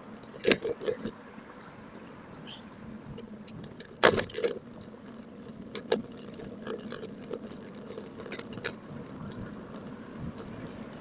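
Bicycle clattering and rattling over the road, with metallic jingling ticks and knocks over a steady rush of wind and tyre noise, played at double speed. The loudest knock comes about four seconds in.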